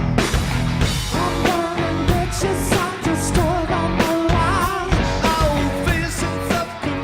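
Rock song with a singing voice, electric guitar and a steady drum beat.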